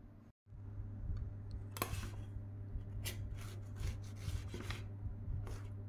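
A metal cake server scraping against the baking tin base and through the crust of a rhubarb cake, about seven short rasping scrapes, over a steady low hum.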